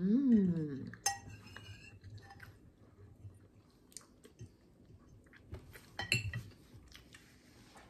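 Metal fork clinking and scraping on a ceramic plate while someone chews with her mouth closed, with a few sharp clinks about a second in and again near the end. It opens with a short hummed "mmm" that rises and falls in pitch.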